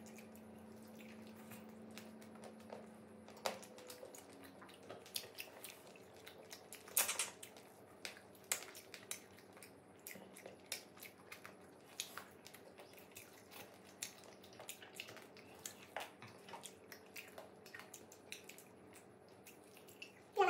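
Wet eating sounds of grilled fish eaten by hand: chewing, lip smacks and sucking, heard as scattered short clicks with a few louder ones.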